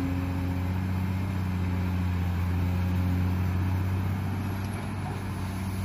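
Large Caterpillar hydraulic excavator's diesel engine running steadily with an even low hum while the machine digs.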